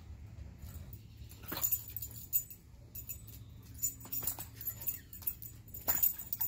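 Alaskan husky jumping after soap bubbles on a tiled patio: scattered sharp clicks and taps, with a short dog vocal sound about one and a half seconds in.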